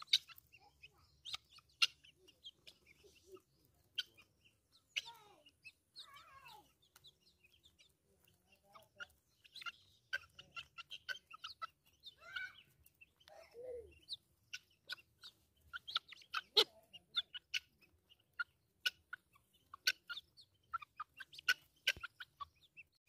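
Young guinea fowl keets and a chick pecking at grass, with many quick clicks and rustles. Soft chirps and clucking calls run through it, with a few falling call notes.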